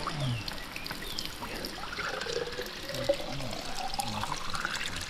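Running water trickling and pouring steadily, the flow of a small mountain stream.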